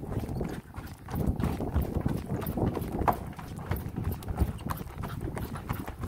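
Footsteps on a wooden plank bridge deck: a person walking at a steady pace, each step a knock on the boards.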